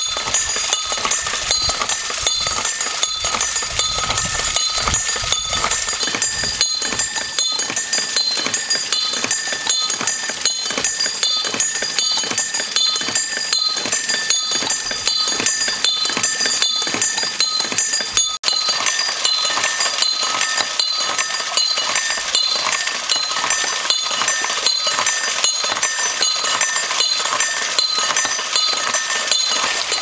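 Two bells struck over and over by water-wheel-driven rods and strikers, in a rapid, steady clanging rhythm. Each strike sets off high, shrill, overlapping ringing tones, with splashing stream water underneath.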